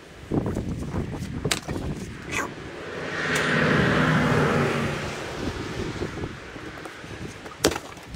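Knocks of firewood being handled and, near the end, one sharp strike of a splitting maul on a log. In the middle, a passing vehicle swells up and fades away over about three seconds.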